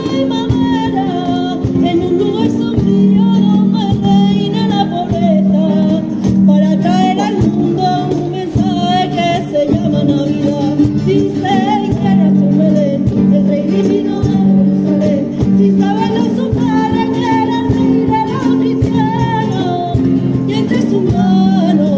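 A choir singing a Christmas song to two acoustic guitars, with rhythmic hand-clapping.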